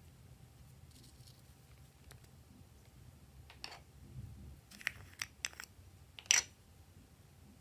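Small plastic makeup pots being handled and their screw lids opened: a few sharp plastic clicks and taps over about three seconds from halfway in, the loudest near the end.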